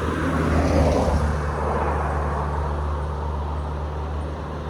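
Car engine humming steadily, with road and tyre noise that swells about a second in and then eases off.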